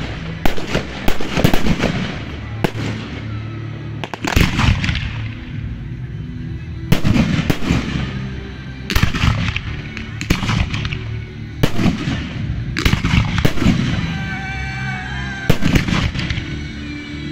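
Aerial fireworks shells bursting in the sky, a sharp bang every second or so with some bursts in quick pairs, over music playing underneath.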